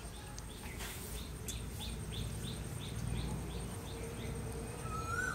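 A bird calling a short high note over and over, about four notes a second, with a steady low background rumble.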